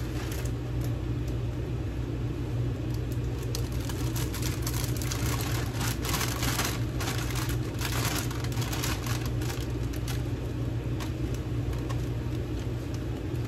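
Plastic bag of spinach crinkling and rustling in short bursts as the leaves are shaken out into a pot, over a steady low hum.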